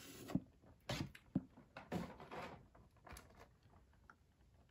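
Light knocks and rustles of a carded, blister-packed action figure being handled and set aside, about half a dozen short sounds in the first three seconds, then dying away.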